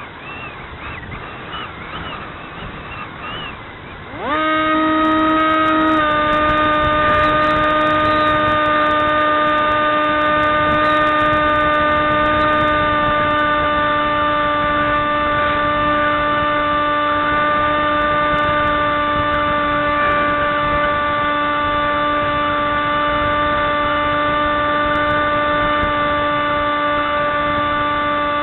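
Model aircraft's motor and propeller spinning up sharply about four seconds in, then running at a steady high whine, close to the onboard camera.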